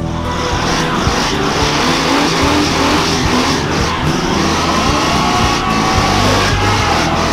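Car doing a burnout: the engine held at high revs that rise and fall, over the loud hiss and squeal of spinning tyres.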